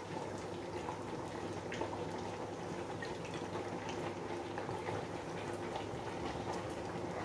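Pot of soup simmering on the stove: a steady bubbling hiss with many small pops and crackles.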